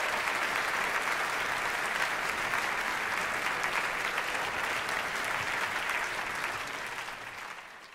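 Audience applauding steadily, many hands clapping at once, dying away near the end.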